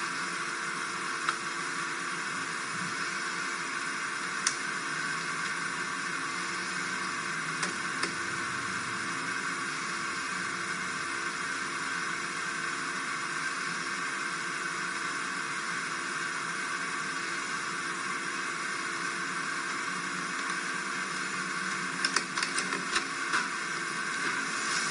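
Steady hiss with a few sharp clicks, most of them in a quick run near the end.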